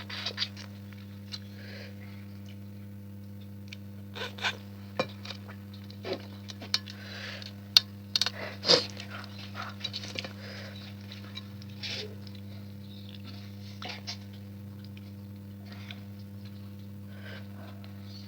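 Eating at a plate: scattered clinks and clicks of dishes and short bursts of chewing and handling food, the sharpest clinks about eight to nine seconds in. A steady low hum underlies it.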